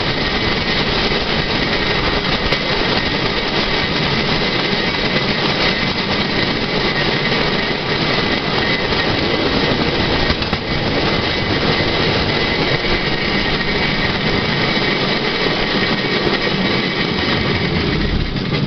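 Swedish bicycle draisine rolling along the rails: a steady, loud rattling rumble of its steel wheels on the track, with faint high tones running through it.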